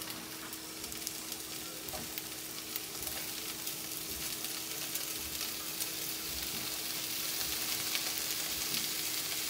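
Sliced kielbasa sausage and bell peppers sizzling and crackling in a hot skillet as the sausage goes into the pan. The sizzle gets louder in the second half.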